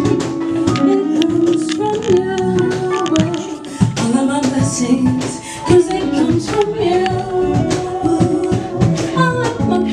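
Live band music: women singing into microphones over guitar and a steady beat.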